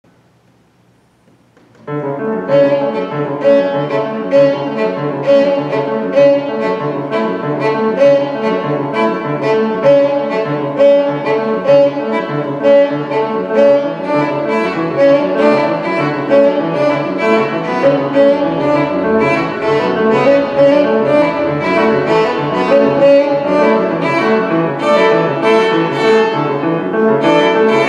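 Violin and grand piano playing together: the piano keeps a steady, even pulse of repeated notes while the violin plays sustained lines over it. The music begins about two seconds in, after near silence.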